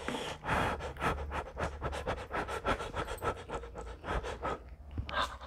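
Close-up eating sounds over whole roast chicken: the meat being torn apart by hand and chewed. It comes as a rapid, irregular run of small smacks and crackles that eases off near the end.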